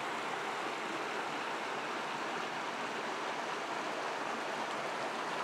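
Shallow rocky stream running over and between boulders: a steady rush of flowing water.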